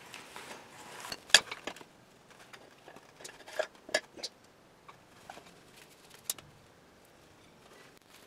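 Scattered metal clinks and knocks from the Allis Chalmers 310 lawn tractor's steering-column parts being handled during teardown, the long steering shaft among them. The sharpest knock comes a little over a second in, with a few lighter ones over the next few seconds.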